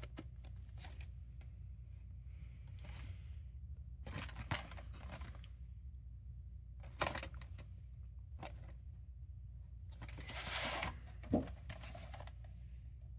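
Handling noise from a cardboard VHS slipcase and its plastic cassette: short rustles and scrapes as the box is turned over, a longer scraping rustle about ten seconds in as the cassette slides out of the sleeve, then a sharp knock.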